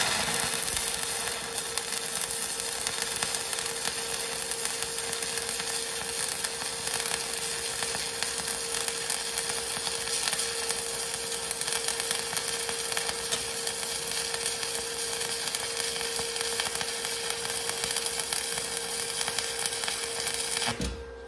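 Stick-welding arc from a Mastercraft arc welder running a bead on steel plate, set to DC electrode positive at about 70 amps: a steady sizzling crackle that cuts off abruptly near the end as the arc is broken.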